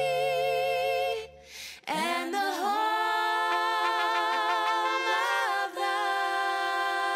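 Women's voices singing together in close harmony, sliding up into long held notes after a short break about two seconds in. Before the break, another held chord of music fades out.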